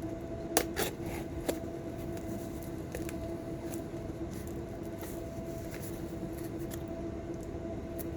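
A mailed package being cut and pried open by hand: scattered clicks and light rustles of packaging, over a steady hum.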